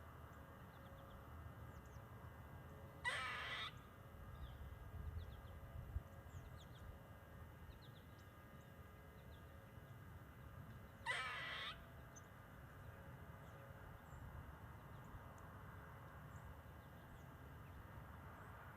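An animal call, short and harsh, heard twice about eight seconds apart; the listener suspects a squirrel. Between the calls there is only a faint steady background.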